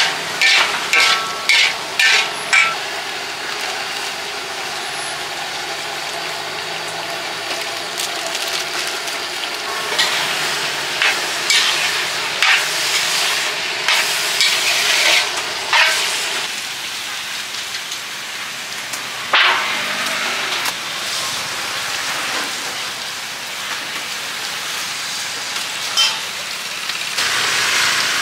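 Metal spatula scraping and clanking against an aluminium wok as a minced mixture is stir-fried, over a steady sizzle. The strokes come in quick runs near the start and again about ten to sixteen seconds in.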